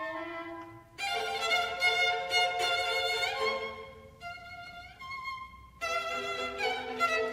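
Background music: an instrumental melody of long held notes that drops back for a couple of seconds past the middle and then comes in again.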